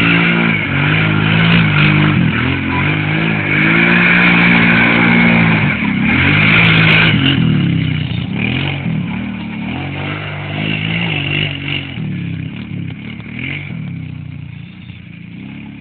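Kawasaki KFX 700 V-Force quad's V-twin engine revving up and down again and again as it is ridden hard across sand. It grows fainter from about halfway through as the quad pulls away.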